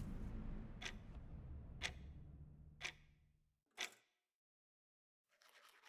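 A clock ticking once a second, four ticks in all, over a low drone that fades and stops just before the last tick. About a second of silence follows, then a faint hiss.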